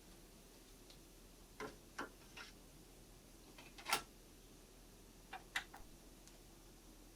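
Scattered faint mechanical clicks in near quiet: two or three clicks about one and a half to two and a half seconds in, the loudest click about four seconds in, and a quick pair about five and a half seconds in.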